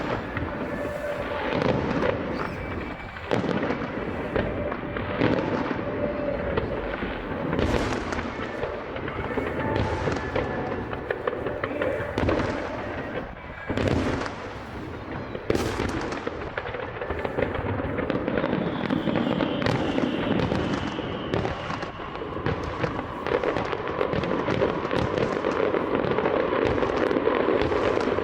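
Aerial fireworks bursting: a dense run of bangs and crackling from shells going off in quick succession.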